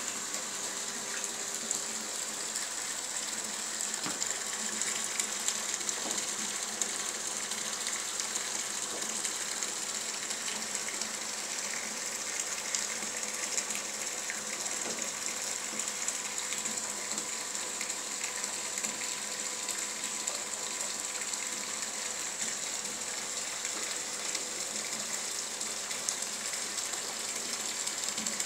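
Electric pump of a wine plate filter running steadily with a faint even whine and light mechanical clicking, while filtered wine gushes from a hose into a plastic vat.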